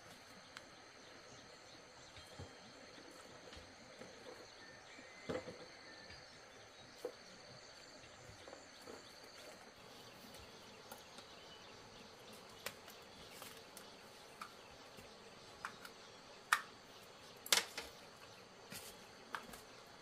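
Faint background of steady insect chirring, broken by scattered light knocks and taps; the two loudest knocks come about three-quarters of the way through.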